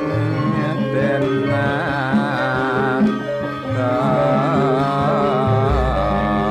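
Javanese gamelan music of the kethoprak accompaniment: steady low metallophone tones under a high, wavering melody line that enters about a second and a half in.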